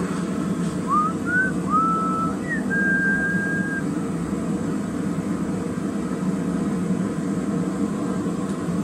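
Steady low rushing of the forge burner, with a short whistled phrase about one to four seconds in: a few quick rising notes, then one note held for about a second.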